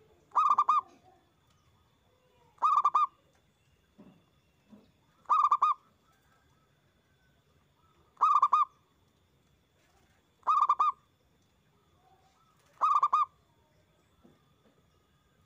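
Zebra dove (perkutut) cooing: six short, loud, rolling coo phrases, each about half a second long and repeating about every two and a half seconds.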